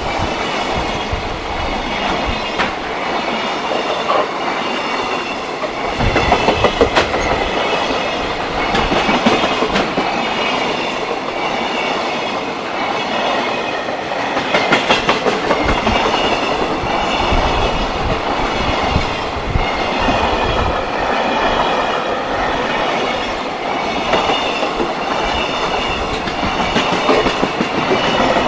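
Container freight train of Koki flat wagons rolling past at speed: a steady rumble and rush with quick clusters of wheel clicks over the rail joints every few seconds as the bogies go by.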